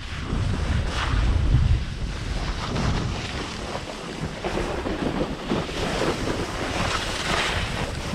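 Wind buffeting the microphone in gusts, heaviest in the first couple of seconds and then easing to a steadier rush.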